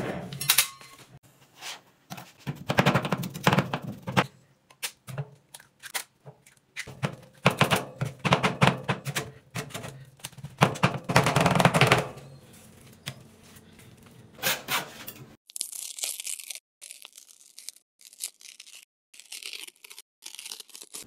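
Metal spatulas chopping and smashing an ice cream cake and donuts on a steel pan: rapid clacks, knocks and crunches in several loud bursts. About fifteen seconds in, this gives way to a thin, high scraping as a spatula rolls ice cream off the pan.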